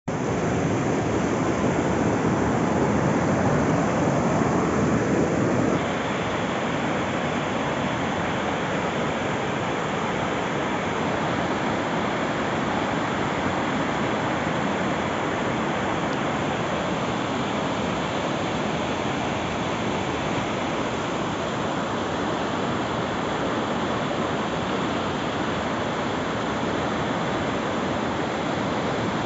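Floodwater of a swollen river rushing steadily. It is a little louder for about the first six seconds, then drops slightly at a sudden change.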